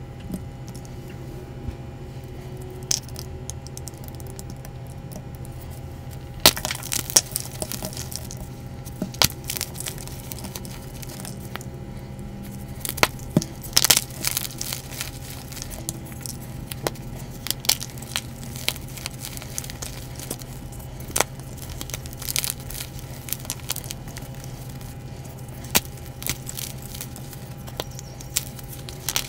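Blocks of gym chalk crushed and broken by hand, giving sharp cracks and snaps with powdery crumbling between them, starting about six seconds in. Before that only soft, quiet handling of kinetic sand with a few faint clicks.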